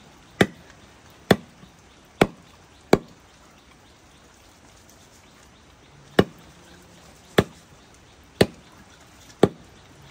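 Eight sharp chopping blows on wood: four in quick succession, then a pause of about three seconds, then four more.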